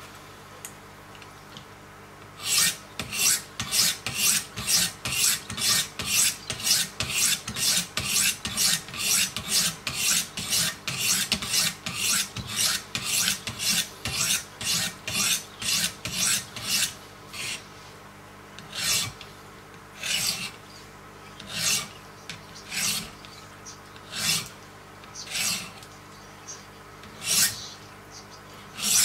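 Wicked Edge guided sharpener's coarse diamond stones rasping along a clamped knife edge in quick, even strokes, about two a second. After about 17 s the strokes slow to about one a second.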